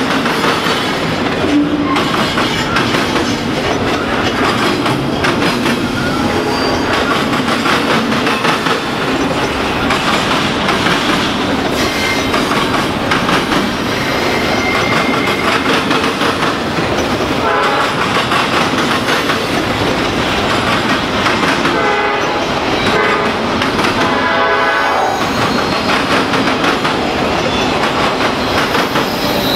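Double-stack intermodal train rolling past close by: a steady rumble with wheels clattering over the rail joints. In the second half, a diesel locomotive horn sounds a few blasts, the last one longer, from the approaching lead locomotive.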